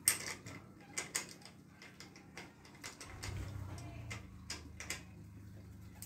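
Sharp metallic clicks and knocks of a hand tool working on a bicycle's crankset and chainrings, a few at a time at irregular spacing, with a low rumble of handling from about three seconds in.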